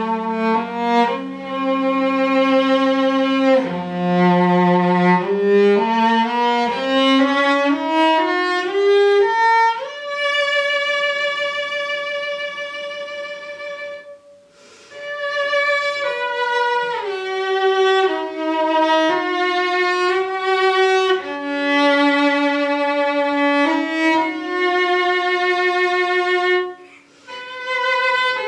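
Solo cello played with the bow, an old German-made cello about 200 years old: a slow melody that climbs note by note to a long held high note about ten seconds in. After a brief break it goes on in phrases moving down and back up, with another short pause near the end.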